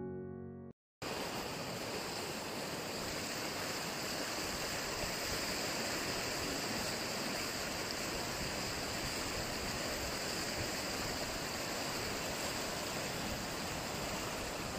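Steady rushing of a swollen, fast-flowing flood river, even and unbroken. A piano tune plays briefly at the very start and cuts off.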